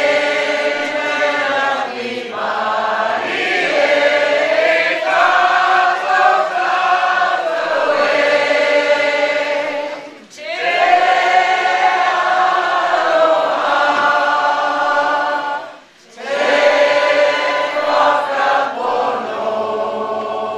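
A large group of men and women singing together unaccompanied, in long phrases broken by short pauses about ten and sixteen seconds in.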